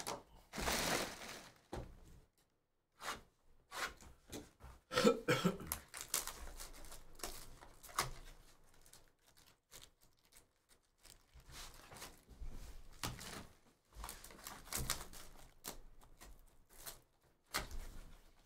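Plastic shrink-wrap crinkling and a cardboard Bowman's Best baseball card box being torn open and handled, in scattered short rustles, taps and clicks.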